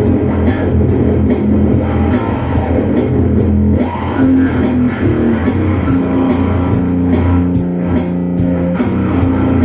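Rock instrumental passage: a five-string electric bass played over drums, with a cymbal ticking about four times a second.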